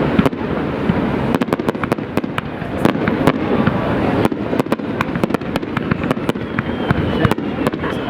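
Fireworks display: a dense run of sharp cracks and bangs, several a second, over a continuous din of shells bursting.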